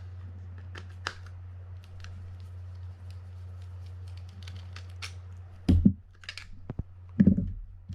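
Small clicks and light knocks of a spinning reel being handled as its handle is taken off, with two louder thuds in the second half, over a steady low hum.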